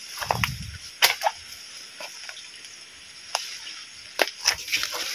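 Crackles, rustles and sharp snaps of leaves and twigs as someone moves through dense undergrowth on a creek bank. There is a dull low thump about half a second in, and the sharpest snap comes about a second in, all over a steady high hiss.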